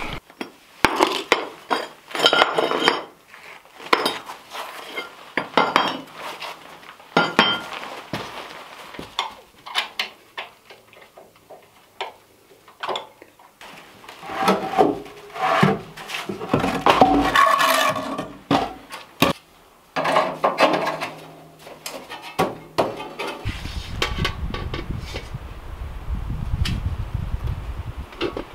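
Cast iron parts of a Vermont Castings wood stove clanking and knocking as they are handled and fitted back together: a long string of sharp metallic clanks, some in quick clusters, others spaced a second or more apart.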